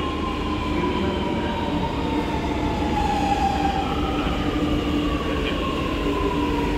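Lucknow Metro train pulling into the platform and slowing, its electric drive whining in tones that fall steadily in pitch over a continuous rumble of wheels on rail.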